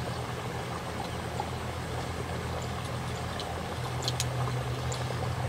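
A steady low hum over a faint hiss, with a few light clicks, the clearest about four seconds in.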